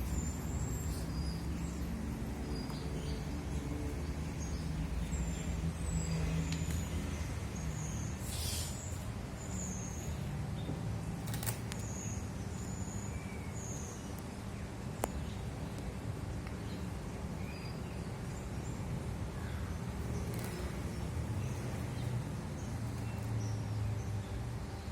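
Steady low background rumble and hum, with short high bird chirps scattered throughout and a few sharp clicks.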